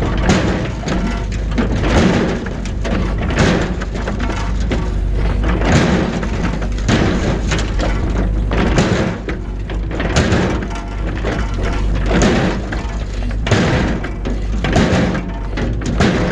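Stones and rubble clattering and thudding in irregular knocks about once a second, over a machine engine's steady low running.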